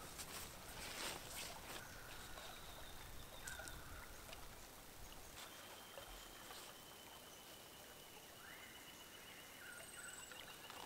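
Faint whistled bird calls in the bush: short level whistles repeated a few times, a long held high note through the second half, and a rising whistle near the end. Light rustles and clicks sound under them, mostly in the first couple of seconds.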